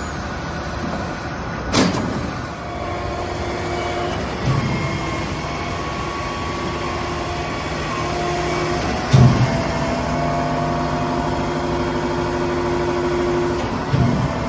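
Putzmeister 60-metre truck-mounted concrete boom pump running under load. Its engine and hydraulics give a steady hum, broken by four loud knocks a few seconds apart as the pumping cylinders change stroke. The hum's pitch shifts after each knock.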